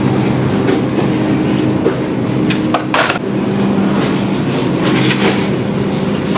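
Shopping cart rolling over a hard store floor, its wheels rattling and humming steadily, with sharp clacks about two and a half to three seconds in and again around five seconds.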